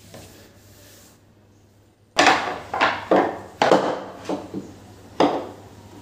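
Kitchen clatter: a quick run of about eight sharp knocks and clatters of hard objects being handled and set down on the counter, starting about two seconds in after a quiet start.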